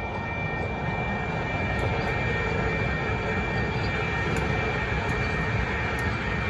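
Metro Rail light rail train passing over a grade crossing: a loud, rushing rumble that starts and stops abruptly, over the steady ringing of the crossing's electronic warning bells.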